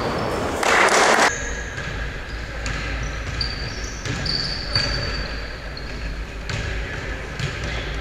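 A basketball bouncing on a gym floor several times at uneven intervals during play, with a brief high squeak in the middle. A short loud burst of noise about a second in cuts off sharply.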